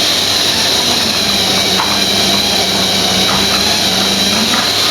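Model railway locomotive running on the layout: a steady electric-motor whine over the rolling noise of wheels on track, with a lower hum joining for about three seconds in the middle and a few faint ticks.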